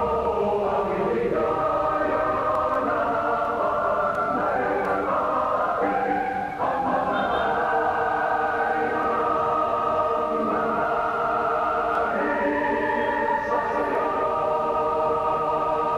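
A choir singing slow, sustained chords, several voices holding each chord for a second or two before moving to the next.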